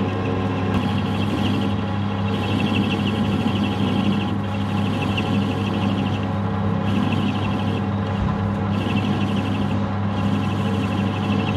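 Metal lathe running with a steady motor hum while its cutting tool turns a bolt down into a cone. A higher rasping cutting sound comes and goes in stretches of one to two seconds as the tool bites into the bolt.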